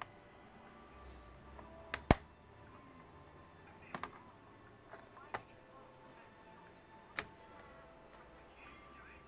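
A few sharp clicks and taps of tools and small hard parts being handled during laptop disassembly, several seconds apart, the loudest a quick double click about two seconds in. Faint background music underneath.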